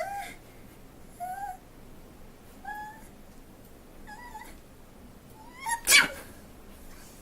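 A person's sneeze: four short, high squeaky vocal sounds, each rising then falling, come a second or so apart, then a loud, sharp sneeze about six seconds in.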